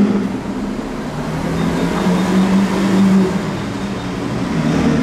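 Lamborghini Sián FKP 37's naturally aspirated V12 running at low revs as the car creeps along in a concrete parking garage, the steady note swelling and easing a little.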